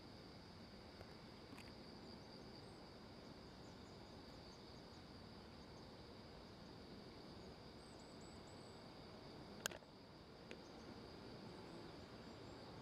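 Near silence outdoors with a faint, steady high-pitched insect drone, and one sharp click about ten seconds in.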